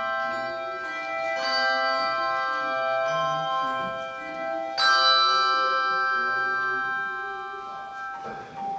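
Handbell choir ringing chords of many clear bell tones. A fresh chord is struck about a second and a half in, and a louder final chord about five seconds in. It rings on and fades until the bells are damped and the ringing cuts off near the end.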